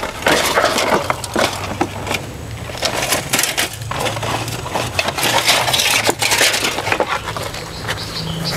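Irregular crunching and rustling of dry leaves and foliage close to the microphone, a run of sharp crackles. Short bird chirps come in near the end.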